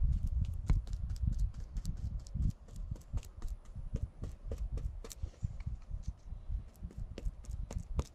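Brush dabbing resin into a chopped-fiberglass patch on the boat's hull: quick, light taps at about five a second, with a low rumble under them for the first two and a half seconds.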